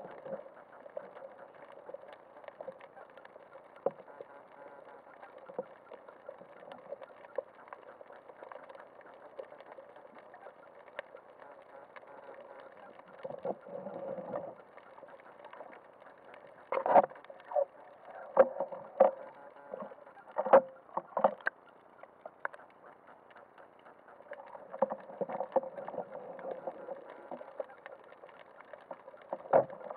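Muffled underwater noise heard through a waterproof camera housing on a speargun, with a run of sharp knocks and clicks between about 17 and 21 seconds in and a few low rumbling swells of water movement.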